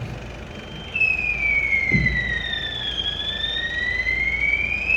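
Fire alarm siren sounding one slow sweep: a high tone starts about a second in, glides down in pitch, then back up. A single dull thump sounds about two seconds in.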